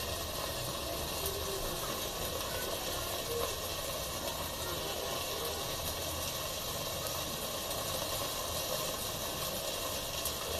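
Steady hissing of whole stuffed brinjals roasting over the flame until the skins char, with a low hum under it and no change throughout.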